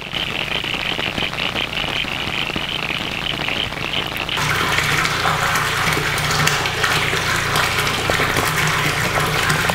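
Rain falling on a pond with frogs calling in a high-pitched chorus. About four seconds in, this gives way to rainwater pouring from a pipe into a tank, a steady gushing splash with a low hum beneath it.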